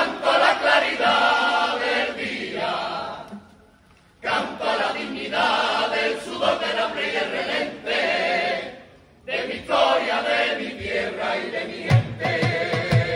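Carnival coro of mixed voices singing together in long phrases, with short breaths between them. About twelve seconds in, a bass drum starts beating a steady rhythm under the voices.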